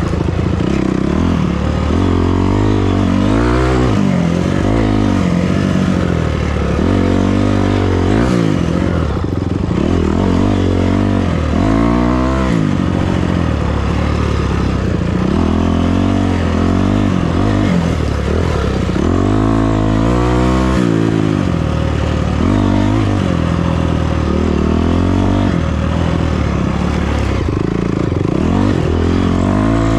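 Off-road vehicle engine under load, revving up and easing off over and over as the throttle is worked, with repeated rising and falling pitch.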